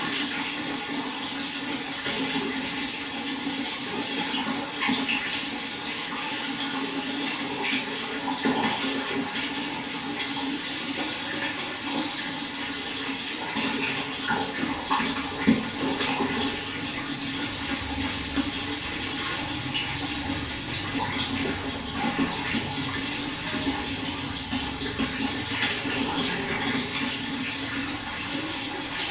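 Running water splashing steadily, with many small splashes throughout and one sharper splash or knock about halfway through.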